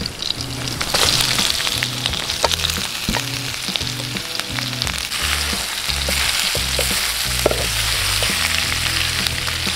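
Blanched goat meat sizzling in hot oil with sautéed onion and garlic in a wok. The sizzle swells about a second in as the meat goes in and carries on while it is turned with a wooden spatula, with small clicks throughout.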